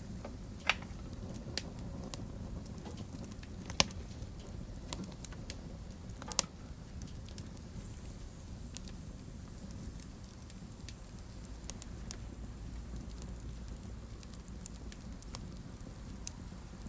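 Fire burning in a fireplace: a low steady rumble of flames with scattered sharp crackles and pops, the loudest about one, four and six seconds in.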